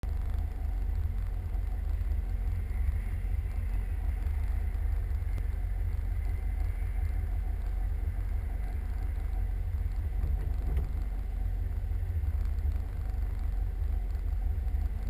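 Peugeot 205 XS's four-cylinder petrol engine idling steadily while the car sits still, heard from inside the cabin as a low, even rumble.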